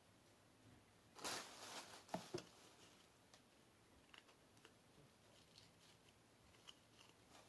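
Faint handling noises: a brief rustle about a second in, a couple of small clicks right after it, then a few faint ticks over near silence.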